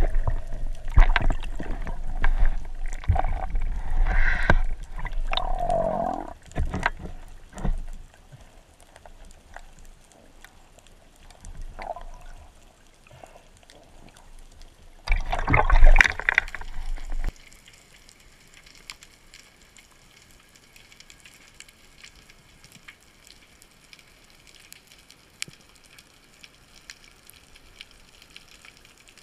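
Water sloshing and bubbling around an underwater camera on a speargun while a spearfisher dives, loudest over the first several seconds. About halfway through comes a loud burst of splashing near the surface that cuts off suddenly, followed by faint underwater hiss with scattered crackling ticks.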